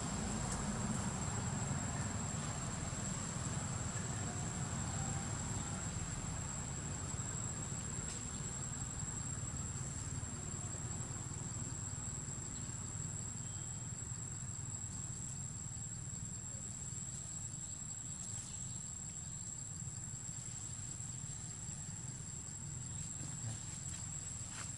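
Steady high-pitched insect drone that never lets up, over a low rumble.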